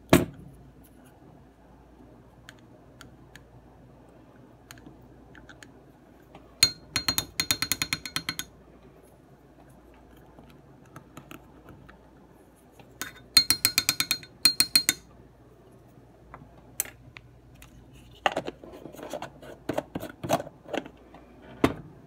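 A plastic spoon scooping coconut oil from its jar and tapping against a glass measuring cup: two spells of rapid clicking with a high ringing note, about seven seconds in and again around fourteen seconds in. Duller knocks and clatter near the end.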